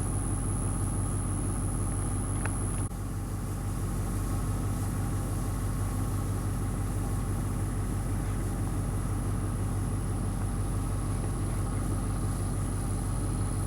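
Steady low mechanical rumble, with a faint high whine that cuts off about three seconds in.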